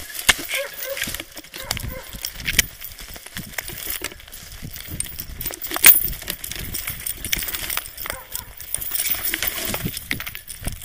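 Grass and dry scrub rustling and scraping as someone pushes through dense brush on foot, with scattered knocks and one sharp, loud knock about six seconds in.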